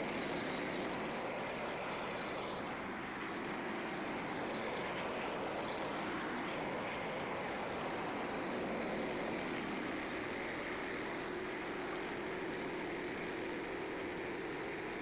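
Portable bandsaw sawmill running steadily, its engine driving the blade, with no change in pitch or level.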